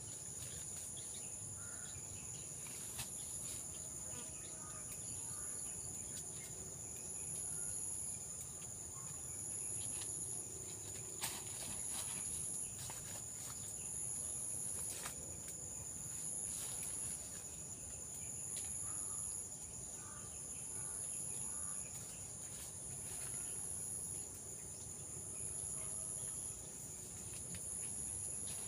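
Insect chorus outdoors: a steady shrill trill with a higher band pulsing on and off about every second and a half. Faint bird chirps and a few sharp clicks come through now and then.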